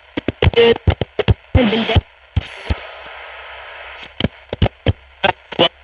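Philips L4X-26T radio being tuned across stations: brief snatches of broadcast voices broken up by clicks and crackle, with a stretch of steady static hiss between stations in the middle.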